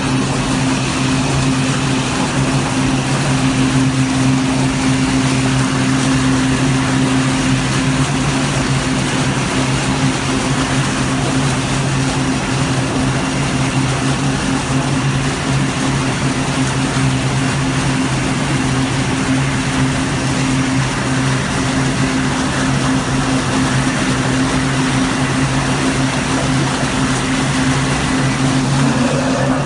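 Twin steam jet-cook injectors blowing live steam into water in a large stainless vessel, making a loud, steady rushing roar with a low hum underneath.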